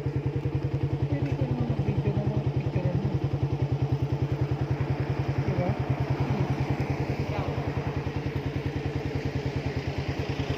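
Motorcycle engine running steadily under way, with an even, fast pulsing beat.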